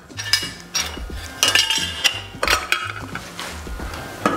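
A metal utensil clinking and scraping against a tin can and a bowl as canned tuna is emptied out and broken up: a run of irregular clinks and scrapes.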